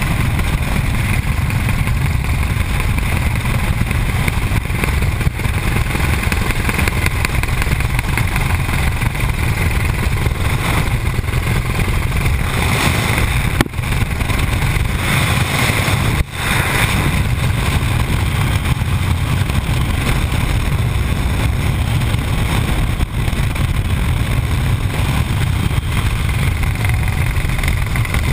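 Helicopter engine and rotor noise with wind rushing past the open cabin door, a steady loud drone that dips briefly twice around the middle.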